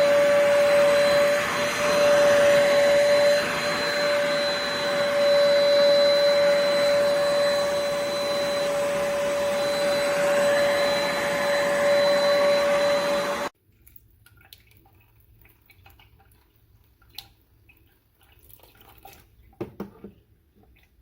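Hoover Spotless portable spot cleaner's suction motor running steadily with a high whine, stopping abruptly about two-thirds of the way through. Afterwards only faint small clicks and knocks.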